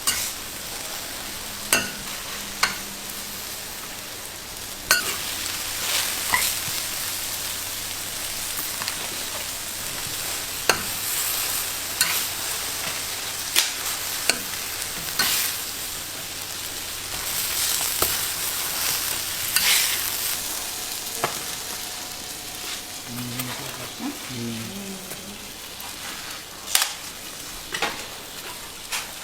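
Food sizzling as it fries, with sharp clicks and taps of cooking utensils now and then.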